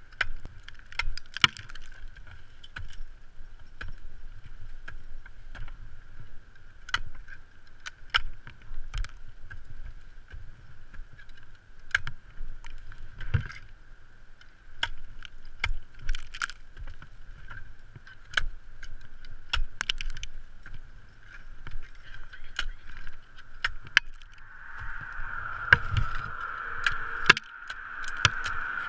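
Ice axes striking cold, brittle waterfall ice: a long run of irregular sharp knocks and impacts as the tools swing in one after another, over a steady faint high hum.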